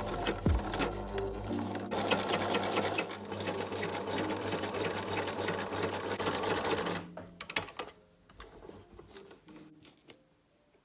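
Domestic sewing machine running with a fast stitching rattle, which stops about seven seconds in. A few scattered light clicks follow.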